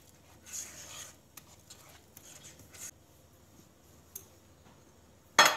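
A whisk scraping and stirring a thick cocoa pudding and crushed-biscuit mixture in an enamel pot, in faint scratchy strokes. Near the end comes a single sharp clack, the loudest sound.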